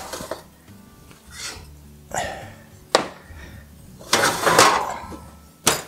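A baking pan of cornbread taken out of the oven and set on the smooth stovetop, with sharp clunks about three seconds in and near the end and a short rattling scrape just after four seconds, over faint background music.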